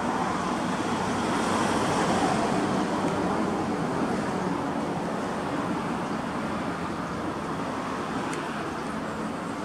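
Road traffic going by: a steady rush of tyres and engines that swells a little a couple of seconds in, then eases off.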